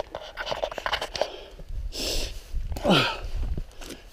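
Hiker's footsteps scuffing and crunching over rock and brush, with a breathy burst about two seconds in and a short vocal sound falling in pitch about three seconds in.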